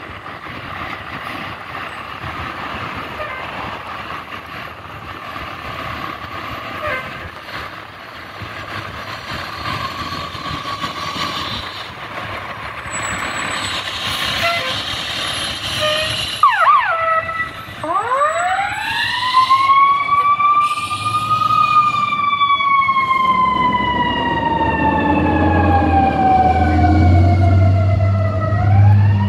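Fire engine pulling out with its engine running, then its siren starts a little past halfway with a few short chirps. It winds up steeply, falls slowly over several seconds and winds up again near the end, over a low rumble that grows in the last few seconds.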